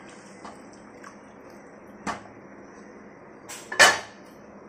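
Cookware clanking: a metal pot knocking against a pan, once about two seconds in and twice more near the end, the last knock the loudest.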